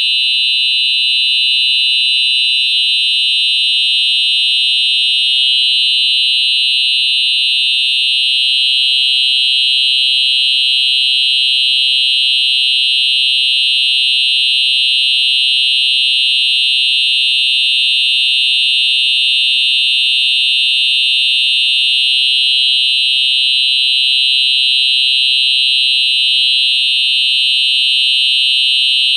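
Simplex 4903-9425 QuickAlert electronic fire alarm horn sounding loud, with a steady, unbroken high-pitched tone.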